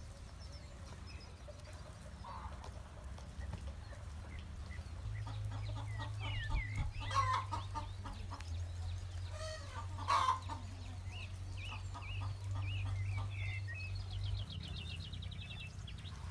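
Chickens clucking, with two louder calls about seven and ten seconds in. Small birds chirp throughout, with a quick trill near the end, over a low steady hum.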